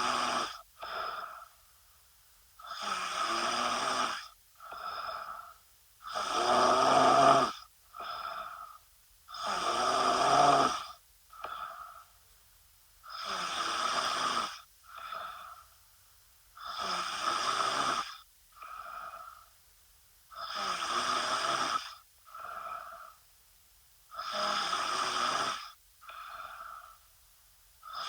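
A woman snoring in her sleep: each breath brings a long, louder snore followed by a short, softer one, repeating evenly about every three and a half seconds.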